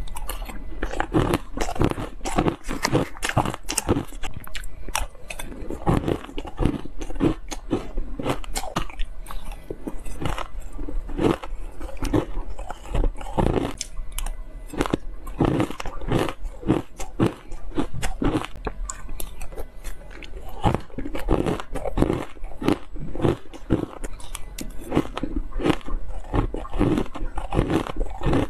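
A person biting and chewing shaved ice: many short crunches one after another, with no pause.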